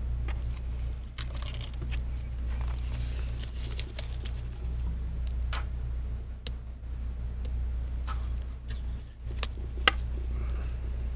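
Small clicks and faint scraping as a thin metal tool and gloved fingers handle the edge and flex cable of a replacement iPad screen, with one sharper click about ten seconds in, over a steady low hum.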